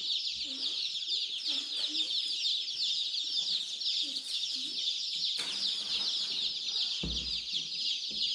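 A flock of week-old chicks peeping without pause, many short falling cheeps overlapping. There is a dull thump about seven seconds in.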